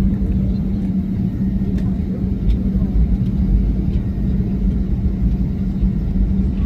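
Airliner noise: a steady low rumble with a constant hum that does not change, and a few faint clicks.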